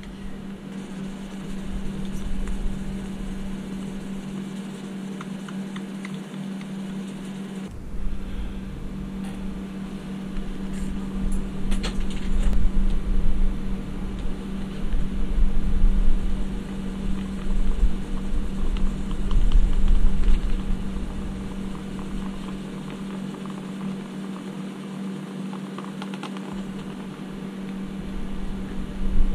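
Rubbing and handling of a toy van's bare metal body during wet sanding with fine-grit wet/dry sandpaper, in irregular swells with a few light clicks, over a steady low hum.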